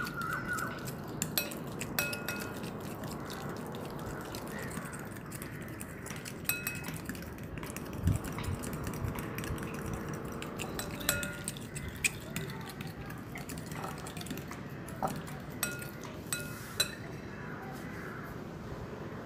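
Metal fork clinking and scraping against a glass mixing bowl in quick irregular strokes while beating ghee with baking soda until fluffy, with one louder knock about eight seconds in.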